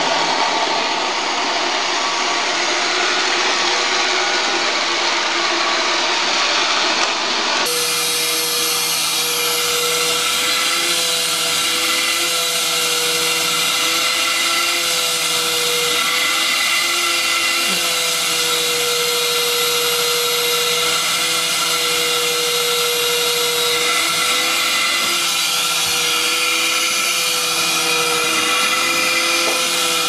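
Vacuum cleaner motors running steadily, with a cut to a second machine about eight seconds in whose motor whine holds one pitch, wavering slightly.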